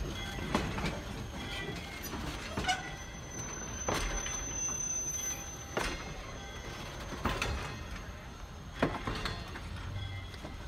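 Railroad passenger coaches rolling slowly past with a low rumble, their wheels clacking over rail joints about every second and a half. A thin high squeal runs for a couple of seconds in the middle.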